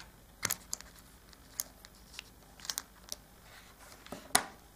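Scattered small clicks and light scrapes of a Firgelli linear servo being taken apart by hand as its threaded lead screw and aluminium tube are slid out of the body. The loudest click comes a little past four seconds in.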